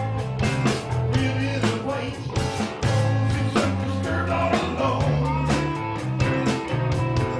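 Live rock band playing: electric guitars and electric bass over a drum kit, with a steady beat of drum hits and held bass notes, and a bending guitar line in the middle.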